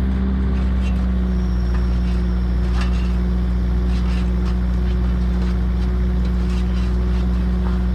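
Engine of the machine driving the pile auger, running steadily at a constant pitch with a deep hum, and a few faint clicks and scrapes over it.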